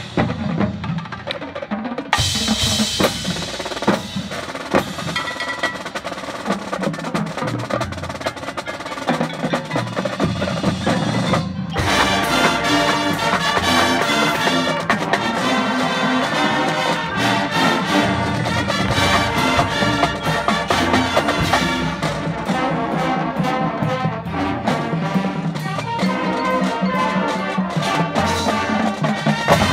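High school marching band playing a field show. Drums and front-ensemble percussion lead for about the first twelve seconds, then the full band, brass included, comes in and plays on.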